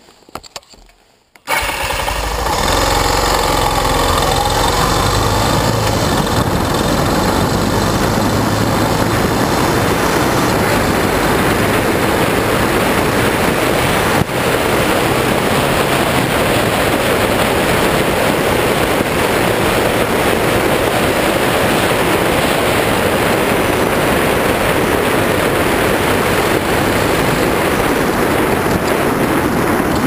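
Suzuki DR650's single-cylinder engine comes in suddenly about a second and a half in and then runs steadily with the bike under way, its note stepping as it gathers speed. Wind noise on the microphone grows over it as the speed builds.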